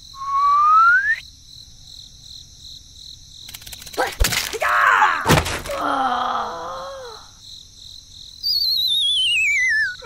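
Cartoon sound effects: a short rising whistle, then two hits about four and five seconds in with a cartoon character's groaning, squeaky voice, and near the end a long falling whistle with a wavering pitch.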